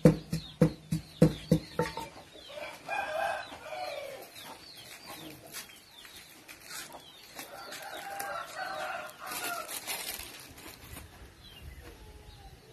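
Wooden pestle pounding in a clay mortar, about three thuds a second, stopping about two seconds in. Then a rooster crows twice, once about three seconds in and again about eight seconds in.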